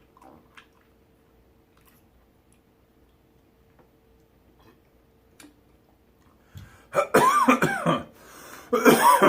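A person coughing hard and clearing their throat while eating hot-tasting candy, in two loud bouts about seven and nine seconds in, after several seconds of near quiet.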